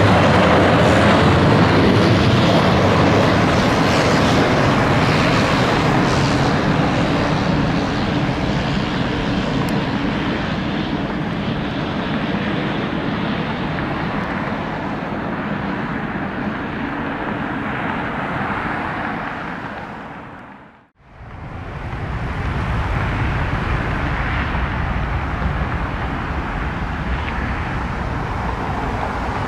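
Jet engine noise from a Boeing 737-700's CFM56 turbofans, loud and steady, easing slowly as the airliner passes. About 21 seconds in the sound drops out for a moment at an edit cut, then a steady jet rumble returns.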